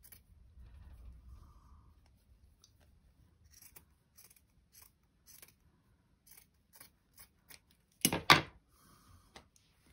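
Scissors snipping through cotton fabric: a string of small, faint snips, then two louder cuts close together near the end.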